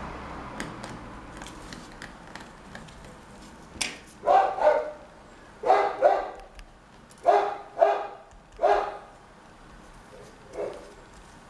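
A dog barking repeatedly in short barks, several coming in quick pairs. There is a sharp click just before the barking starts and faint small clicks.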